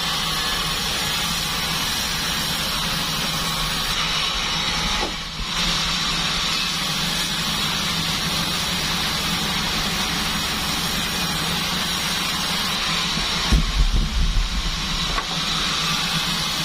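Band sawmill machine running steadily, a constant hiss over a low hum. It dips briefly about five seconds in, and near the end there is a short cluster of heavy thumps.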